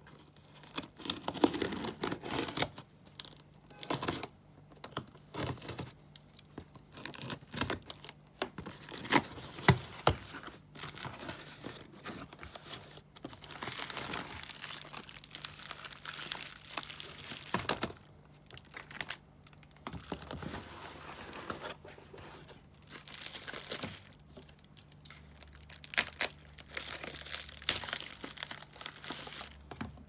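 Packing tape being peeled and torn off a cardboard parcel, followed by bubble wrap and plastic packaging crinkling and rustling as the items are unpacked, with many sharp irregular clicks and taps.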